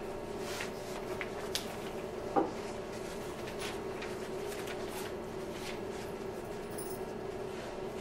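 A steady room hum with scattered light clicks and knocks of small objects being handled on a table, the loudest knock about two and a half seconds in.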